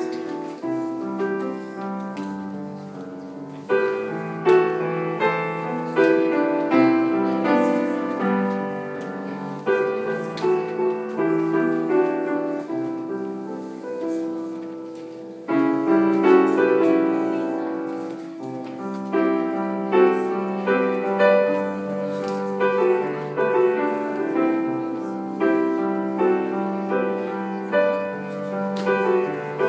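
Grand piano played solo, a pop ballad arranged for piano without voice. It starts softly, grows fuller about four seconds in, eases back briefly around halfway, then builds again.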